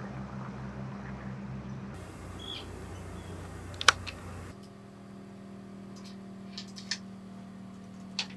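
A steady low hum from the trawler's engine under way, with a sharp click just before the middle. After that come a few light clicks and taps from a cat pawing at a wooden cabinet door and its latch.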